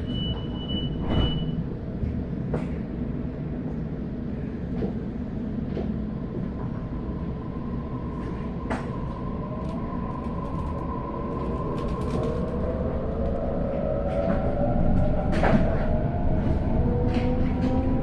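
Sydney Waratah electric train pulling out of the station, heard from inside the carriage. A high steady tone sounds for the first second and a half, with a few knocks. Then the traction motors' whine rises steadily in pitch as the train gathers speed, growing louder over the rumble.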